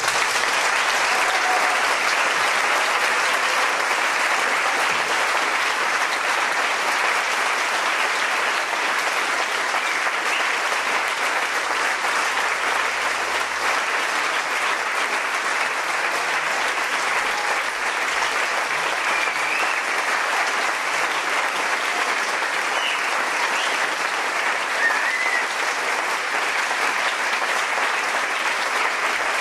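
Theatre audience applauding steadily, a dense clapping that breaks out all at once and holds at an even level.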